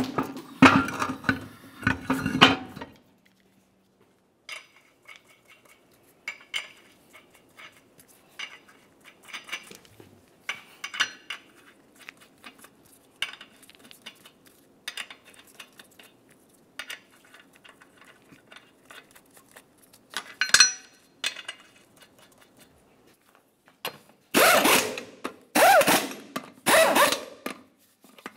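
A heavy steel wheel clanks onto the hub studs. Light metallic clicks follow as lug nuts are threaded on by hand. Near the end, an impact wrench fires four short bursts about a second apart, snugging the lug nuts.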